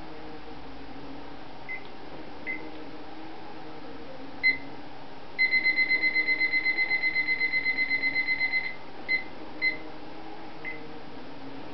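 Meccano model nodding-donkey pump running, a steady electric-motor hum under its rocking beam. Over it, loud electronic beeps at one high pitch: a few single beeps, then a rapid string of beeps, about seven a second, lasting roughly three seconds, then a few more singles.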